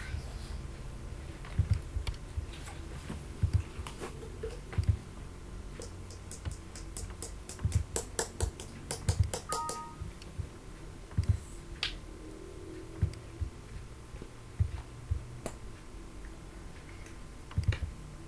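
Computer mouse and keyboard clicks, scattered single clicks with a quick run of about six taps a second partway through, then a short two-tone beep, over a low steady hum.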